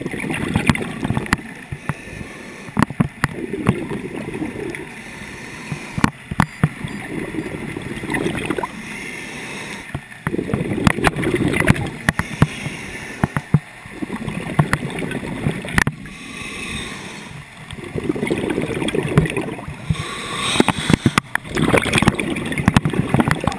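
Scuba regulator breathing underwater: a low bubbling gurgle of exhaled air every three to four seconds, with quieter stretches between and scattered sharp clicks.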